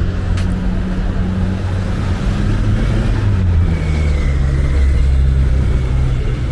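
Street traffic: a motor vehicle's engine running close by, a loud low hum whose pitch steps down slightly about halfway through.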